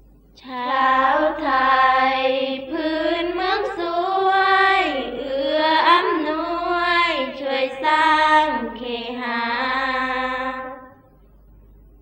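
Sarabhanya chant: a long, drawn-out melismatic vocal line sung without accompaniment, its pitch rising and falling, with a couple of brief breaks. It starts about half a second in and ends about a second before the end.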